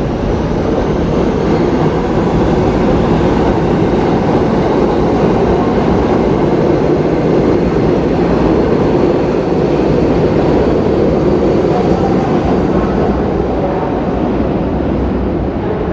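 New York City subway train running through the station on the rails, a loud, steady rumble.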